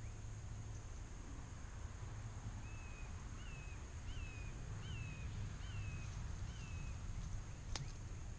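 A bird singing a run of six matching short whistled notes, each rising then falling, about one and a half a second, over a faint low rumble. A single sharp click near the end.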